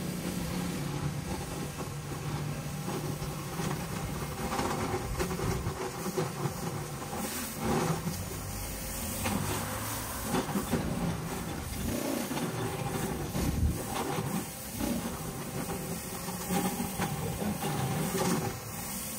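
Pressure washer with a rotary surface cleaner running over wet paving slabs: a steady hiss of water jets over the machine's low running hum.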